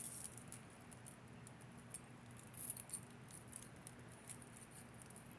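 Metal bead ball chain being handled, giving faint, scattered light clicks and jingles.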